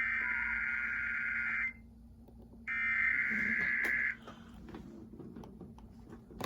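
Emergency Alert System SAME digital data bursts from a relayed alert: two buzzy, screeching bursts, the first about a second and a half long and the second slightly shorter, about a second apart.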